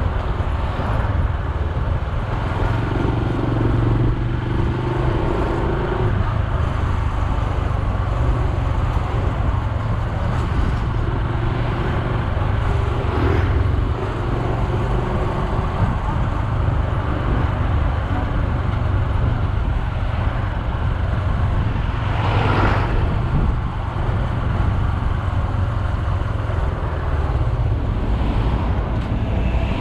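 Honda Super Cub C125's single-cylinder four-stroke engine running steadily at riding speed, with wind and road noise on the microphone. A brief whoosh swells and fades about 22 seconds in.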